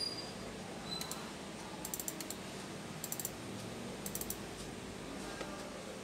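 Computer keyboard keys tapped in three short, quick bursts about a second apart, over a low steady hum.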